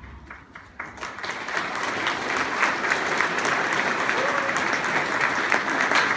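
Audience applause: a few scattered claps at first, swelling within about a second and a half into full, steady clapping.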